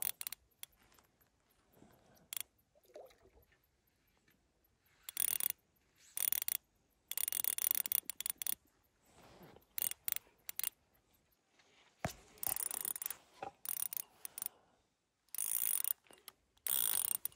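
Fishing reel ratcheting in about eight short bursts of clicking, while a heavy carp is played on the line and still pulling hard.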